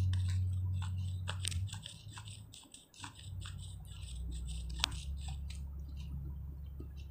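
Faint wet, sticky crackling and clicking of fingers working massage cream over a face, with one sharper click near five seconds. A low steady hum runs underneath and drops out briefly about three seconds in.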